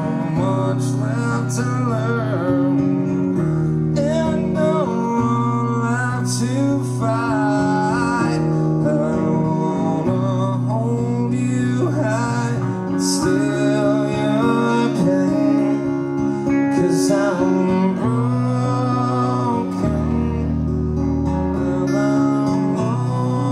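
Live rock band playing a slow song: a man sings into the microphone over electric guitar chords and long held bass notes, with occasional cymbal hits.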